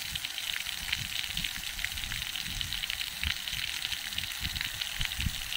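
Water jet hissing as it sprays under pressure from the top of an irrigation standpipe, a steady spattering spray noise with irregular low thumps underneath.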